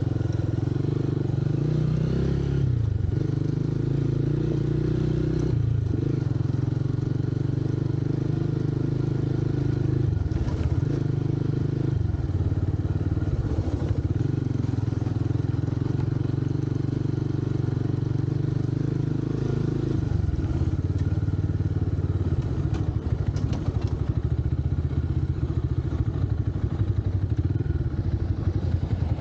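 Motorcycle engine running, its pitch shifting several times as the throttle is opened and closed. About twenty seconds in it settles into a steadier, pulsing low note like an idle.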